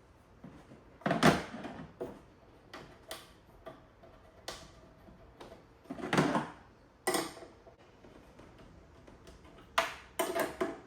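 Irregular metallic clinks and clanks of hand tools and cable hardware as the battery wires of a DIY power station are adjusted and tightened down, about a dozen sharp knocks with the loudest a second in and around six seconds in.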